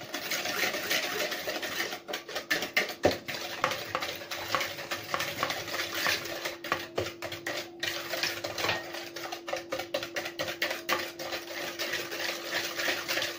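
Eggs and sugar being beaten by hand in a bowl, the utensil clicking and scraping against the bowl in rapid, even strokes.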